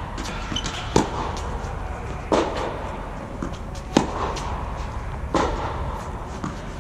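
Tennis ball being hit back and forth in a rally, racket strikes as sharp pops about every one and a half seconds, each echoing in the large air-supported dome.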